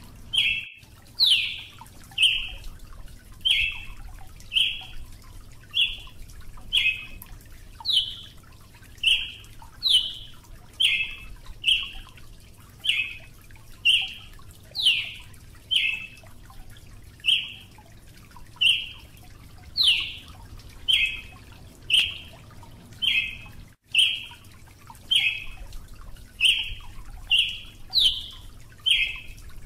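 Brazilian tanager (tiê-sangue) calling: a steady series of short, sharp notes, about one every three-quarters of a second, some of them quick upward sweeps.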